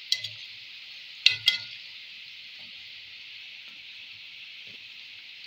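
Balushahi dough rounds deep-frying in hot ghee in a metal kadai: a steady sizzle. A metal slotted skimmer clinks sharply against the pan three times in the first second and a half as the pieces are turned.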